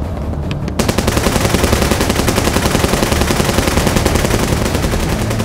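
Sustained rapid automatic gunfire from several assault rifles firing together, starting just under a second in.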